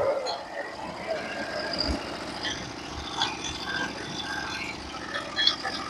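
Norwood HD36v2 band sawmill's engine running steadily and fairly quietly, not under cutting load, between passes while the saw head is brought back and set for the next board.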